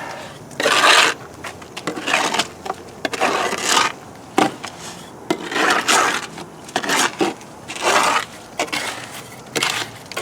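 A hand tool scraping and stirring through wet concrete mix, in short repeated strokes about once a second.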